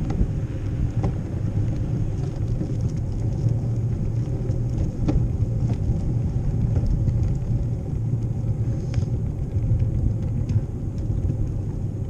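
Steady low rumble from a bicycle rolling over paving stones, picked up by a bike-mounted action camera, with wind buffeting the microphone and a few light clicks and rattles.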